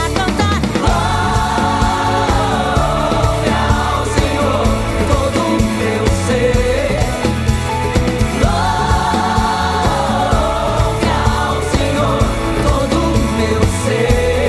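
Brazilian gospel worship song played by a band of drums, bass, keyboards and guitars. Several voices sing together, holding long notes that swell twice: in the first few seconds and again around the middle.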